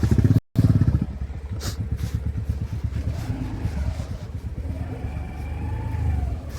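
Motorcycle engine running with a steady, rapid low pulse, broken by a brief silent gap about half a second in.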